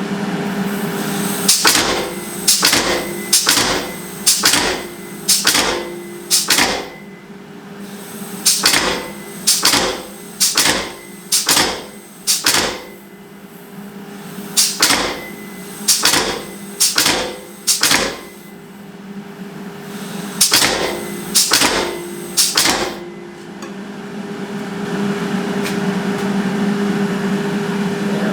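Hand hammer striking hot steel on an anvil, in four runs of several ringing blows about one and a half a second, with short pauses between them, over a steady low hum.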